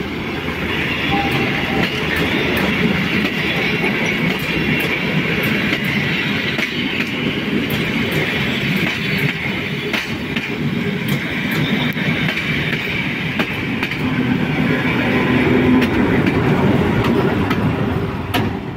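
A diesel passenger train of Class 810 railcars and trailer cars rolling slowly past close by, its wheels clicking over the rail joints and its engines running. It grows louder near the end as the Class 743 diesel locomotive comes alongside.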